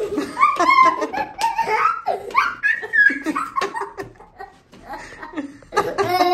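A young boy and a woman laughing and giggling together in a small room, in a long bout followed by a quieter pause and a second burst of laughter near the end.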